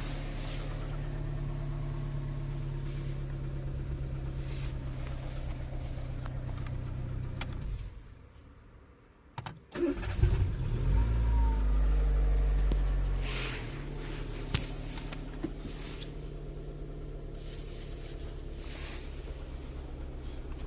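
Renault car engine idling, then switched off about eight seconds in; after a couple of clicks it is cranked and starts at once, runs at a high idle for a few seconds and settles back to a steady idle. The car starting normally shows the steering-lock no-start fault has been cured.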